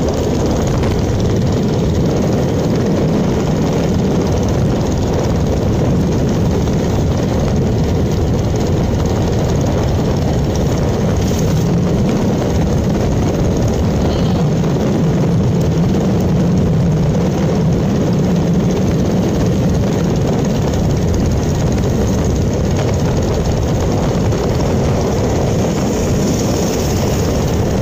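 Motorcycle riding at a steady speed, heard from the rider's seat: the engine running evenly under a loud, constant rush of wind on the microphone.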